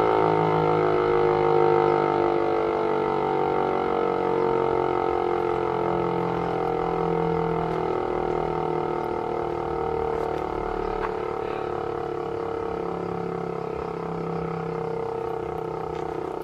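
DEMAY motor-driven fire siren winding down, several tones together slowly falling in pitch and gradually fading.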